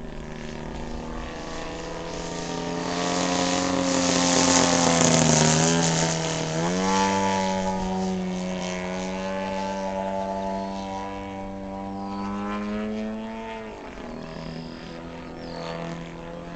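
3W-100 B2 twin-cylinder two-stroke gas engine on a large Aeroworks Edge 540T radio-control aerobatic plane, running in flight with its propeller. The drone gets louder and climbs in pitch toward about five seconds in, dips briefly, then jumps to a higher steady pitch. About fourteen seconds in it drops back to a lower note.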